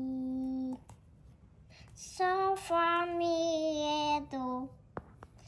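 A high voice singing long held notes: one note ends just under a second in, then from about two seconds in a phrase of several sustained notes steps down in pitch.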